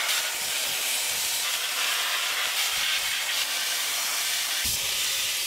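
Dry sandblaster nozzle blasting steel hull plate: a steady hiss of compressed air and abrasive grit, stripping rust and paint back to clean bare metal to prepare the join for welding.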